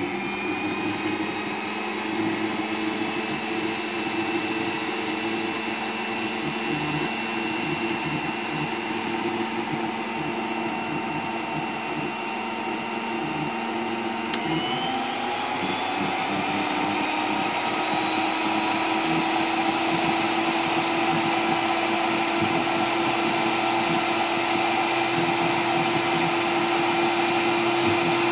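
Paul Mixi 2000 motor unit running with no attachment, a loud, steady whine at low speed. About halfway through its knob is turned to a higher speed: the pitch steps up and the running gets gradually louder.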